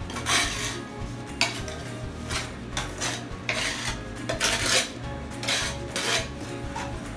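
Steel trowel scraping tile adhesive across the back of a tile, a series of short rasping strokes, roughly one or two a second, as the tile is back-buttered before setting.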